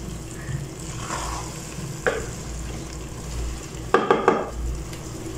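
A wooden spatula stirring thick minced meat and potatoes in a pan over sizzling heat, with a scrape about two seconds in and a quick run of knocks against the pan about four seconds in.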